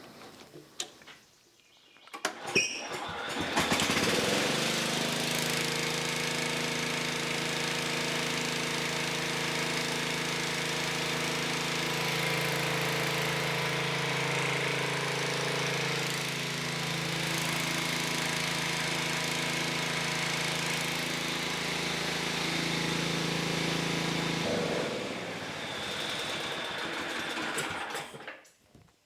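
Tractor engine starting a couple of seconds in and running steadily to power the ripper's newly connected hydraulics. Its note changes briefly near the end before it shuts off.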